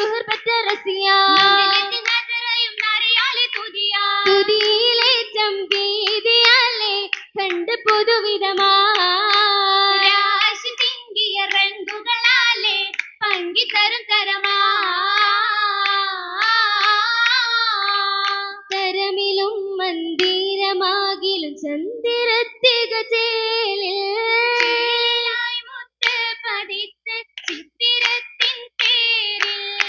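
A group of girls singing an Oppana song (Mappila song) together, with the dancers' rhythmic hand claps cutting through. Near the end the singing breaks off in short gaps between sharp claps.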